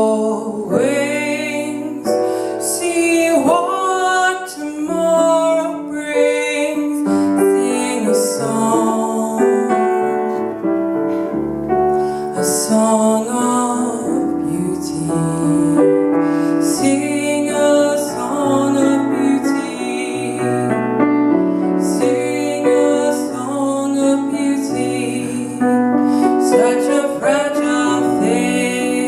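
Slow piano ballad: piano accompaniment with a woman singing the melody in long, held notes.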